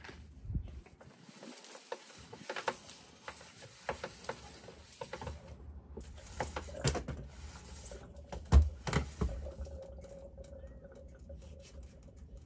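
Scattered clicks and knocks of a wall-mounted garden hose reel being handled, the loudest a sharp knock about two thirds of the way through; a faint steady whine comes in near the end.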